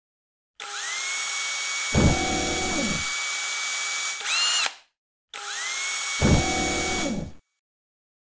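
Sound effects of an animated metal title panel: a mechanical whir that rises into a steady high whine, a low impact with falling tones about two seconds in, and a short rising power-up sweep before it cuts off. After a brief silence the whir and impact come again and stop suddenly.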